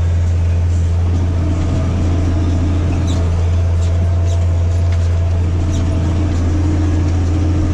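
Massey Ferguson 8210 tractor engine running steadily under load at about 1700 rpm while pulling a disc harrow through a cover crop. A few faint high ticks come through over the steady drone.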